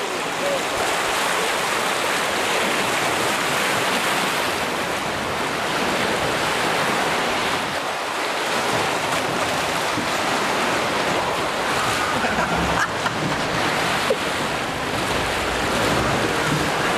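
Rushing white water of a river-rapids ride churning around a round raft as it drifts down the channel, a steady rush.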